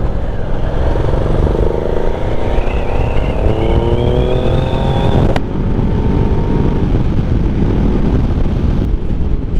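Ducati Multistrada 1200's V-twin engine accelerating, its pitch rising steadily for about four seconds. About halfway through it drops off suddenly and settles into steadier running, over constant wind rush.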